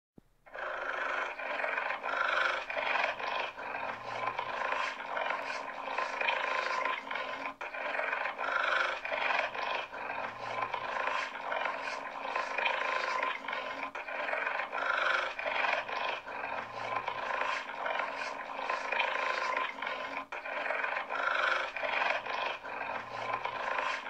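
Cheetah vocalizing: one continuous rough call that swells about every two seconds in a steady repeating pattern.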